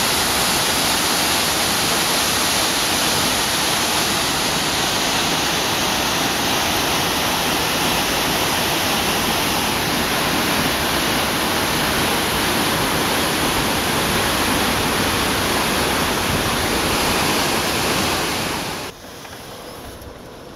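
Hartnett Falls pouring into its plunge pool: a steady, loud rush of falling water. It cuts off suddenly near the end, leaving a much quieter background.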